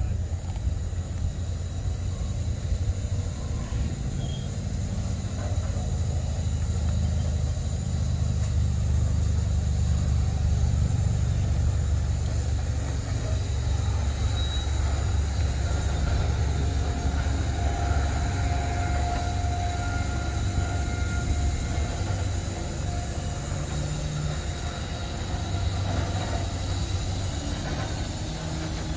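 Steady low mechanical rumble as a rusty 1958 Ford pickup is pulled slowly up onto a car-hauler trailer, with a faint higher whine held for a few seconds midway.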